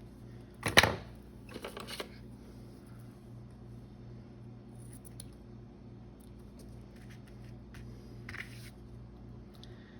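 Scissors snipping through ribbon: one sharp snip about a second in, then a quick run of smaller snips, and one more faint snip near the end.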